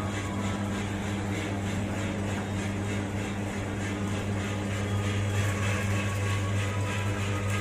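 Gas-fired coffee roasting machine running: a steady electric motor hum under an even rushing noise from the blower and burner, with a faint regular pulsing.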